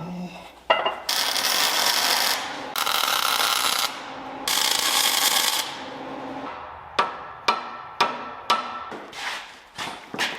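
Workshop tool noise: a sharp knock, then three bursts of harsh hissing noise about a second long each, followed by a run of sharp taps about two a second.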